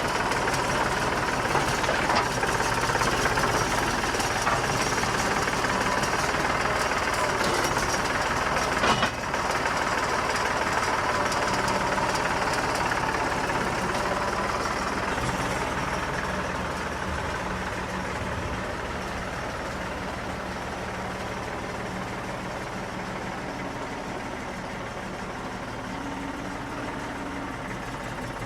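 An engine idling steadily after a cut, with a brief click about nine seconds in, growing gradually quieter over the second half.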